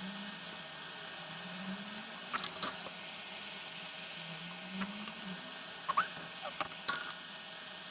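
Scattered small clicks and light scrapes of hands and tools working on small electronic parts and wires, over a steady low hum.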